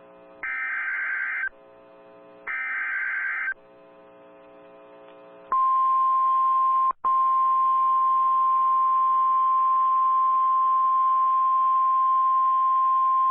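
NOAA Weather Radio Emergency Alert System alert opening: two short screechy digital data bursts of about a second each (the SAME header), then the steady 1050 Hz warning alarm tone held for about nine seconds, with a brief dropout about a second and a half after it starts. Between the bursts the radio carries a faint low hum. The sequence signals that a warning broadcast is starting.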